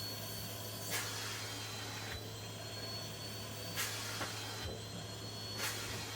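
Vacuum cleaner running steadily with a thin high whine, with short louder rushes of air every second or two.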